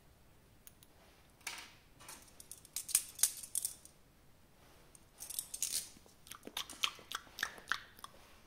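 Hands working small plastic parts and packaging: a run of sharp clicks and crisp scrapes in two clusters, one starting about a second and a half in and one about five seconds in.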